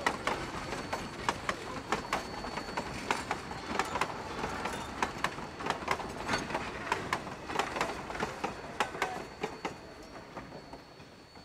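Narrow-gauge railroad cars rolling by, their wheels clacking over rail joints in a quick irregular run of clicks, several a second, fading away near the end.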